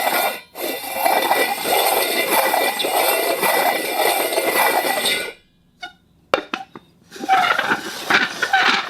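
A hard object scraped across a concrete floor: one long grinding scrape for about five seconds, a few sharp clicks as it is set down or tapped, then a second, rougher scrape with a clinking rattle.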